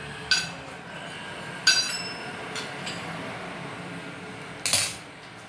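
Three sharp metallic clinks at a small steel tempering pan of cumin seeds over a gas burner. The second rings briefly and the last is a short, harsher clatter.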